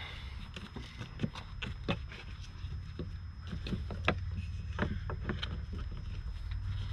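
Irregular light clicks and knocks of a rubber hose and plastic engine-bay parts being handled and fitted by hand, over a low rumble that grows louder about halfway through.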